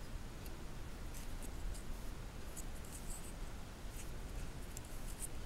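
Faint, scattered small clicks of plastic Lego pieces being handled and fitted together.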